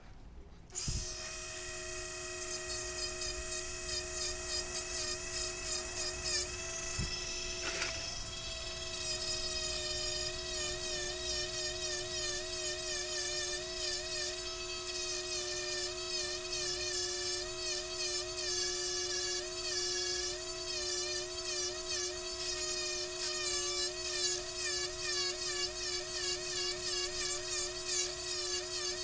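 Dremel rotary tool starting up about a second in and running, its whine wavering in pitch as the grinding bit bears on a timing-chain link, shaving off the rivets to split the chain.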